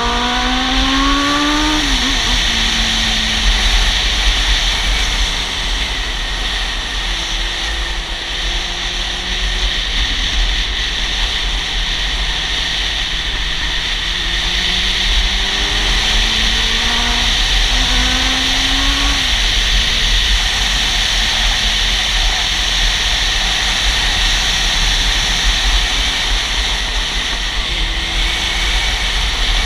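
Honda CB400 Super Four's inline-four engine under way, heard from the saddle beneath heavy wind rush on the microphone. The engine note climbs and drops sharply at a gear change about two seconds in, sags slowly, then climbs again with another shift about two-thirds of the way through.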